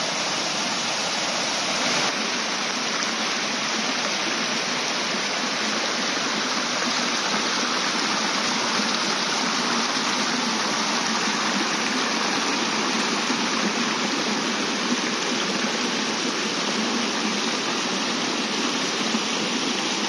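Small waterfall tumbling over stepped rock ledges and the shallow stream riffling over stones below it, a steady even rush of water. The river is running low in dry weather.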